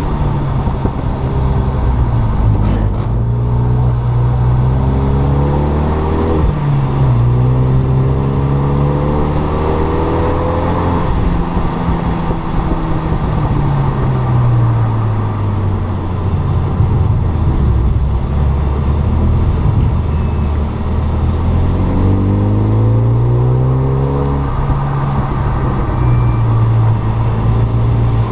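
Stage 2 tuned Renault Mégane 3 RS's turbocharged 2.0-litre four-cylinder engine under hard driving: the revs climb, drop sharply at an upshift about six seconds in, and climb again. The revs then fall away slowly as the car slows, and rise once more before holding steady near the end.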